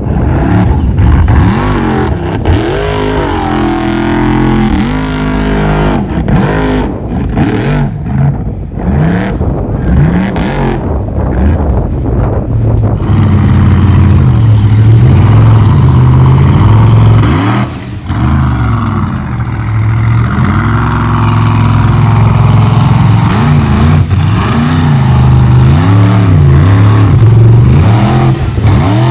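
Formula Offroad race truck's engine revving hard and repeatedly, its pitch rising and falling as the throttle is worked on the climb, with a brief drop about eighteen seconds in.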